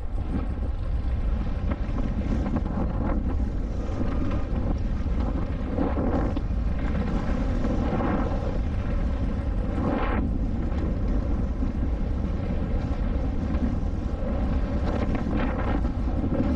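Wind rushing over the microphone of a rider-mounted camera as a mountain bike runs down a dirt jump line: a steady rush with a few swells.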